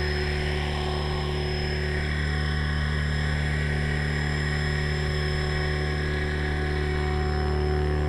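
Small multirotor drone's electric motors and propellers running with a steady, unchanging hum.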